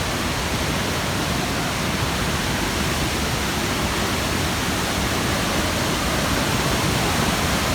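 Waterfall, falling water making a steady, even rushing noise.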